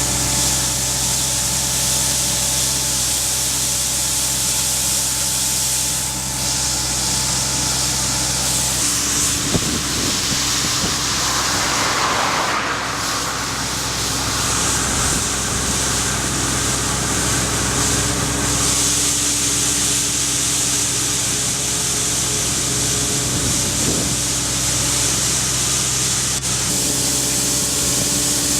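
Excavator engine running steadily under the hiss of a hydraulic sweeper brush working the road surface. The engine's steady hum breaks up and changes pitch around the middle, with a rougher rush of noise about twelve seconds in.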